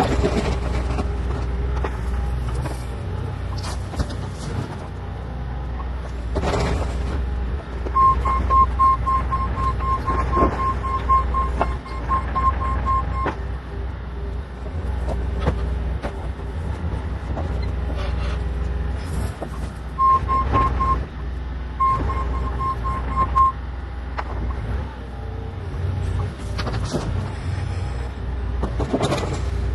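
Bobcat E40 compact excavator's diesel engine running steadily while it works, with occasional clanks. A rapid electronic beeping sounds for about five seconds starting some eight seconds in, and again in two short spells about two-thirds of the way through.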